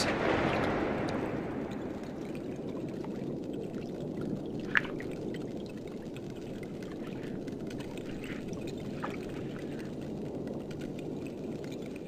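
Underwater ambience: a steady watery rush, with the rumble of a pistol shrimp's blast dying away over the first two seconds and one sharp click about five seconds in.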